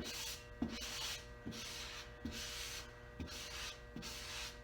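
Felt-edged squeegee rubbed in repeated strokes across wet paper transfer tape over a vinyl decal, about six hissing swipes a little under a second apart, pushing out water left trapped behind the decal.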